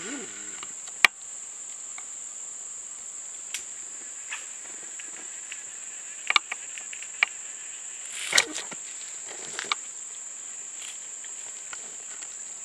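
Steady, high-pitched insect drone, typical of tropical cicadas or crickets, running without a break. A few sharp clicks and knocks cut through it: a loud one about a second in, and several more between about six and ten seconds.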